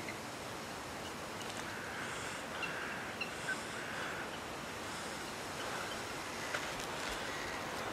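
Woodland ambience: a steady hiss of air through bare trees, with a few short, faint bird chirps between about two and four seconds in.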